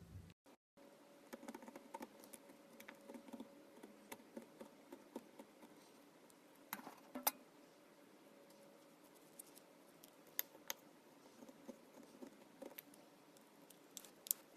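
Faint, irregular little clicks and pops of slime being poked and squeezed by hand, over a faint steady hum; a brief dropout about half a second in.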